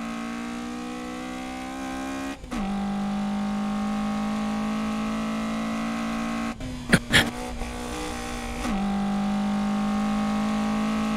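Toyota AE86 Sprinter Trueno's four-cylinder engine at high revs, pitch climbing slowly and dropping sharply at upshifts about two and a half and nine seconds in. A couple of short sharp bursts come around seven seconds in.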